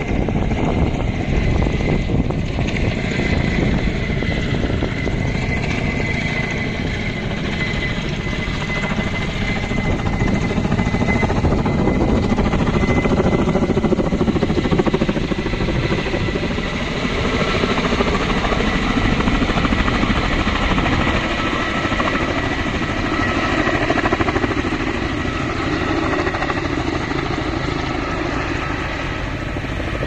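Firefighting helicopter with a water bucket slung below, flying overhead: a steady rotor chop with a high whine, its tones drifting slowly in pitch as it moves.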